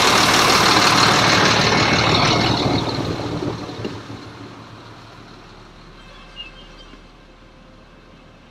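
Bus engine running at idle, a loud noisy rumble and hiss that fades away over the first few seconds, leaving a faint low hum inside the sleeper coach.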